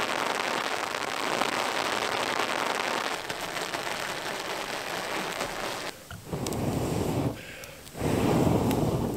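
Steady rain, an even hiss with no pitch to it. About six seconds in, the hiss drops away and two deeper, louder rushing stretches of about a second each follow, with a short lull between them.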